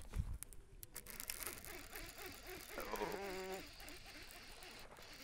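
A fishing reel ticking rapidly and buzzing while a hooked bass pulls hard against a bent rod. There is a thump right at the start, and a louder pitched buzz lasting about a second comes about three seconds in.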